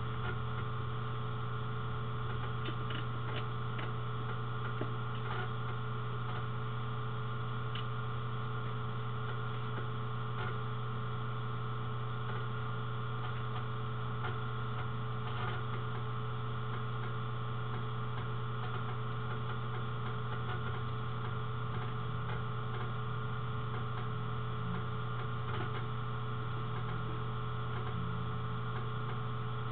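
Steady low electrical hum with faint scattered ticks.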